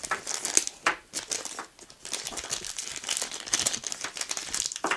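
Plastic packaging crinkling and rustling in irregular bursts as it is handled and pulled at.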